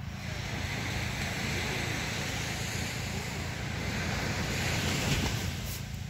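Small waves washing onto a sandy shore, a steady rush that swells to its loudest about five seconds in, with wind rumbling on the microphone.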